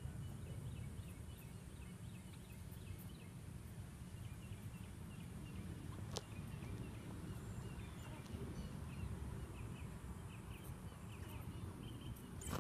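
Outdoor ambience: a steady low rumble, like wind on the microphone, under a run of many short, quick, high chirps from small animals or birds, with one sharp click about six seconds in.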